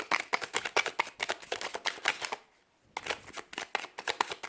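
Deck of oracle cards being shuffled by hand: a rapid, dense run of card flicks, with a short pause a little past halfway before the shuffling starts again.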